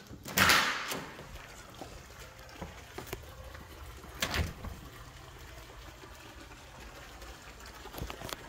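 Steady outdoor background hiss with a faint trickle of water. A loud whooshing rush comes about half a second in and a shorter one around four seconds in.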